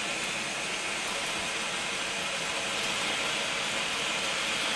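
Food processor motor running steadily, blending spinach pesto into a paste while olive oil is slowly drizzled in through the feed tube.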